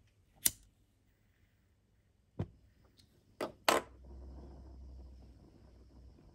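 Four sharp clicks as the knob on the gas-fired Stirling engine's base is pressed, the last and loudest followed by a low steady rumble for about two seconds, typical of the burner igniting briefly.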